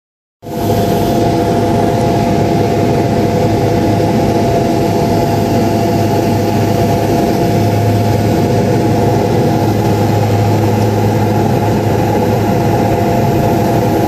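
Turboprop engine and propeller heard from inside the cabin on the landing approach: a loud, steady drone with a deep hum and a constant high tone, starting abruptly about half a second in.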